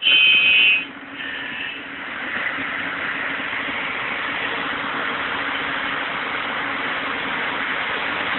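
Excavator engine running steadily while the bucket works in the mud. It opens with a loud shrill squeal lasting under a second.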